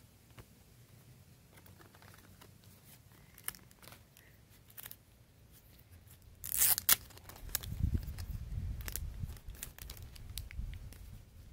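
Clear plastic wrapping on a photo-card pack crinkling and tearing as it is pulled open, loudest in a sharp crackly burst about two-thirds of the way through. Light clicks of cards being handled come before it, and a low rumble runs under the crinkling after the burst.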